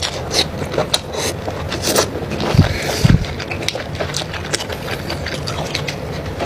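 Close-up eating of a tiger prawn: a run of short crunches and clicks from chewing and cracking shell, with two heavier thuds about two and a half and three seconds in, over a steady low rumble.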